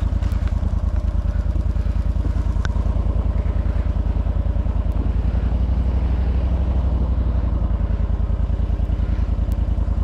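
Jon boat's outboard motor running steadily, a fast even putter.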